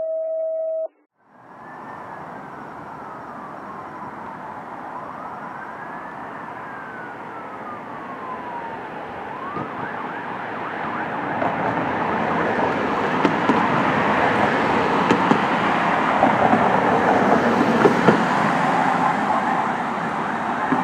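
A brief steady electronic tone cuts off about a second in. Then a fire truck's siren wails in slow rising-and-falling sweeps, distant at first. From about ten seconds in it grows steadily louder, with heavy engine and road noise as the fire apparatus approaches.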